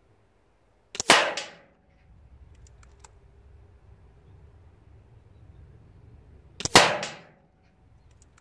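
Two shots from an Air Arms S510 SL Carbine .22 pre-charged pneumatic air rifle, one about a second in and another some six seconds later. Each is a sharp crack that fades over about half a second, and a few faint clicks fall between them.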